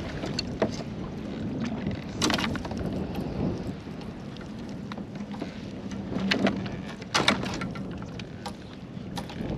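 Scattered knocks and handling noises on a fishing kayak over a steady rush of wind and water, with the sharpest knocks about two seconds in and around six to seven seconds in.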